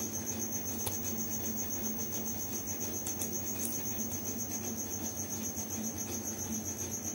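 A cricket trills continuously, high-pitched and steady, over the even whir of the desktop computer's fans running as it boots.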